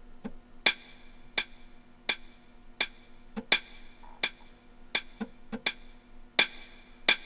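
Roland MT-80S MIDI player's count-in: about ten sharp percussion clicks, evenly spaced about every 0.7 s with a few fainter clicks between them, counting in a track that is about to start.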